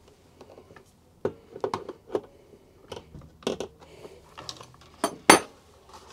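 Irregular clicks and light knocks of a hand tool and plastic headlight parts as the bolt holding a projector in a headlight housing is tightened, with one sharper knock about five seconds in.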